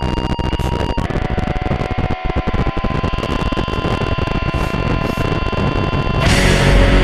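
Race motorcycle's V-twin engine held at steady high revs under wind noise, heard from the rider's helmet. The engine note shifts about a second in. Loud music cuts in near the end.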